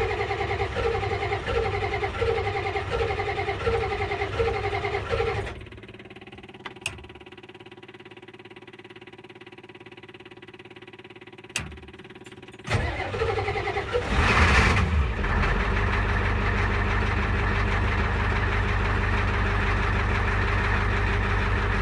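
IDI diesel engine cranked by its starter for about five seconds without starting, then a pause with a couple of clicks. It is cranked again and catches about fourteen seconds in, then settles into a steady idle: a hard start even after an 8-second glow on a warm engine at 60°F.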